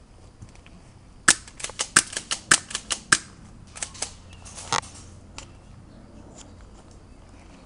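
Airsoft guns firing: a quick string of sharp shots beginning about a second in, then a few scattered single shots, after which the firing stops.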